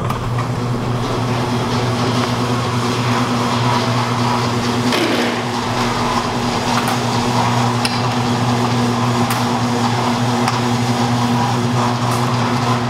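A steady, low mechanical hum from a running machine, with a few light clicks and knocks over it.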